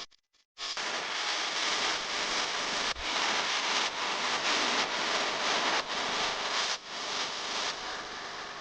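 Steady rushing, hiss-like noise with no clear tone. It starts about half a second in and steps in level a few times.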